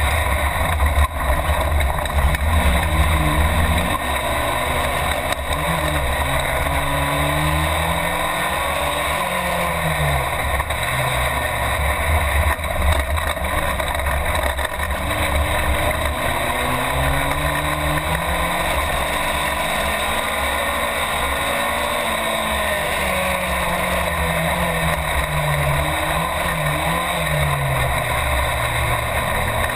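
Competition car's engine heard from inside the cockpit, running hard. The revs climb and drop again and again as the car accelerates, lifts and changes gear.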